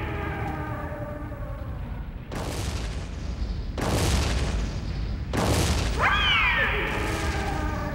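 Sound effects of a monster battle: three explosions boom about a second and a half apart, over a low rumble. A giant monster's cry, a screeching roar that slides down in pitch, starts with the third explosion about five seconds in and trails off by about the seventh second.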